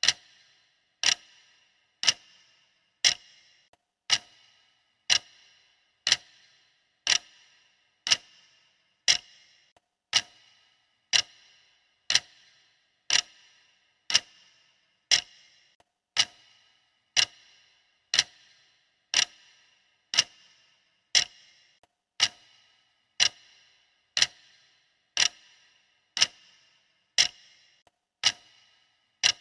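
Clock-tick sound effect of a countdown timer: one sharp tick every second, each with a brief ring, keeping a steady even pace.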